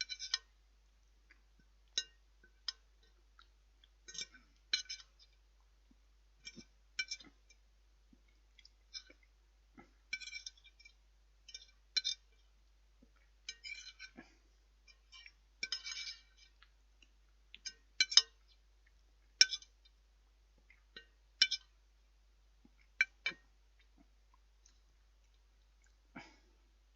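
Metal cutlery clinking on a plate in irregular taps and short scrapes, every second or two, as the last of the food is gathered up.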